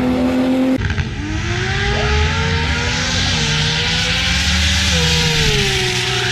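Toyota Supra's turbocharged 2JZ inline-six engine on a drag-strip pass. Its note climbs, falls back at about three and about five seconds in as it shifts, then keeps pulling. Under a second of a steady engine note cuts off abruptly at the start.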